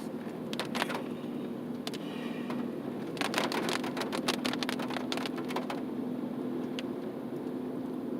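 A car driving, with a steady low hum of engine and road noise inside the cabin. A few sharp clicks come just under a second in, and a dense run of rapid crackles follows about three seconds in and lasts a couple of seconds.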